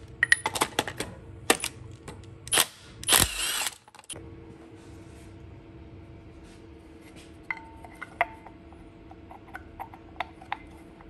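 Metal clinks and knocks of a socket and tool loosening the knock sensor from a cast-iron LS engine block, with a short rapid rattling burst about three seconds in. After a cut, only faint scattered ticks of hand work on the block.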